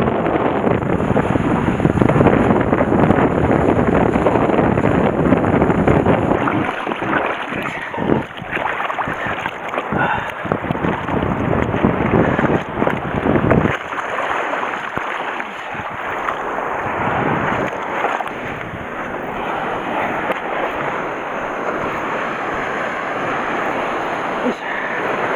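Wind buffeting the microphone and water rushing past a windsurfing foil board under sail, heaviest for the first six or seven seconds and then gusting on and off. From about fourteen seconds in the wind noise drops away, leaving the softer wash of waves breaking on the shore.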